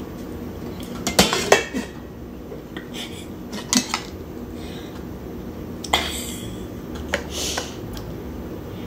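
Metal spoon and fork clinking and scraping against a dinner plate, with a stainless steel pot lid clattering as it is set back on the pot. About seven separate sharp clinks, the loudest a pair about a second in.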